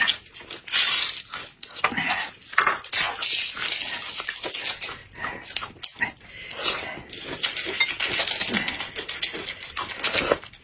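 Close-miked eating of stirred yogurt: spoons scraping and clicking in yogurt cups, with slurps and lip smacks, and a plastic spoon wrapper crinkling as it is torn open.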